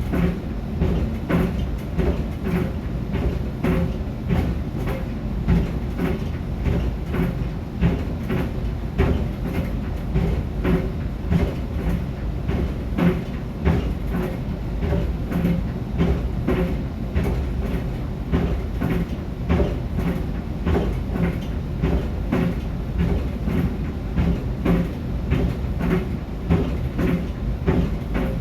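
A pair of sneakers tumbling in a running clothes dryer, thumping rhythmically against the drum about once or twice a second over the steady rumble of the dryer.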